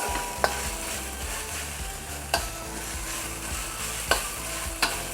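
Pounded spice paste sizzling as it fries in hot oil in a pan while being stirred, with four sharp knocks of the stirring utensil against the pan.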